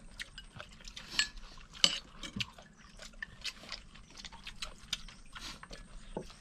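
Eating utensils clicking and clinking against bowls and dishes during a meal, in light irregular taps, with two sharper clinks in the first two seconds.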